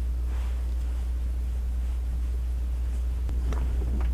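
Gear being handled in an SUV's open cargo area: faint rustling and a couple of light clicks near the end, over a steady low rumble.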